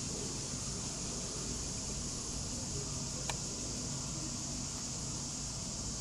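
Steady, high-pitched insect chorus over a low, steady hum, with a single sharp click about halfway through.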